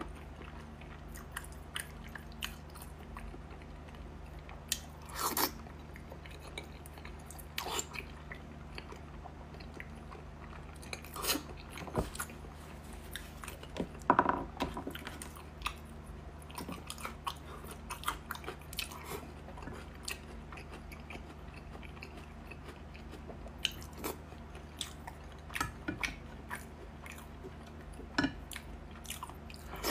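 Close-miked chewing and biting of soft, fatty braised pork: wet mouth smacks and short clicks that come and go unevenly, the loudest squelch about halfway through. A faint steady low hum runs underneath.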